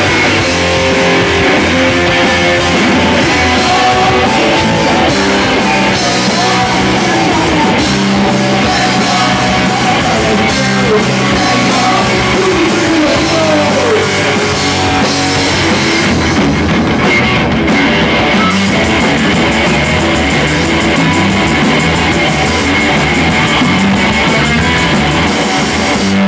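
Live rock band playing loud, with electric guitar and drum kit, the song stopping abruptly at the end.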